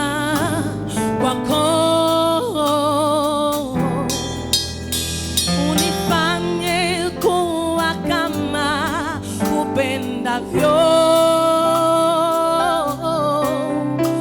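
Slow gospel worship music: a voice holding long notes with vibrato over steady instrumental accompaniment.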